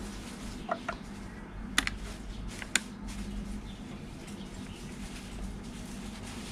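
Four light clicks and taps in the first three seconds, a metal test probe touching the terminals and screws of an open breaker board, over a steady low hum.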